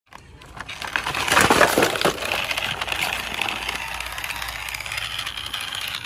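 Clattering and rattling of small hard objects, densest about one to two seconds in, settling into a steady rattle.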